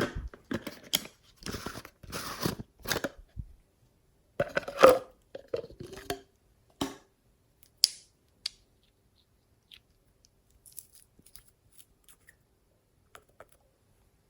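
Glossy slime being squished, stretched and pulled apart by hand, giving irregular crackling, tearing squelches, loudest about five seconds in. After about seven seconds it thins to a few sharp pops and then faint small crackles.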